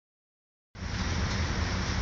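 Steady vehicle rumble with an even hiss over it. It cuts in abruptly about three-quarters of a second in, after digital silence.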